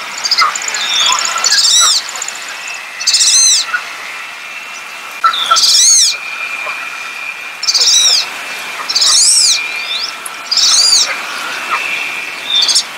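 Wood duck calling: a series of thin, high whistled squeals, each rising then falling in pitch, about seven of them spaced one to two seconds apart. A faint steady high tone runs underneath.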